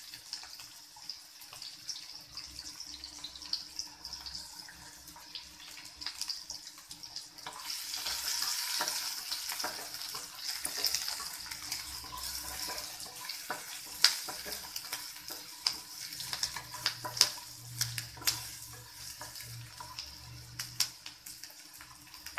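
Chopped onions and cumin seeds sizzling in hot oil in a nonstick kadhai, with a steady frying hiss that swells for a few seconds about a third of the way in. A spatula stirring them taps and scrapes against the pan in sharp clicks, mostly in the second half.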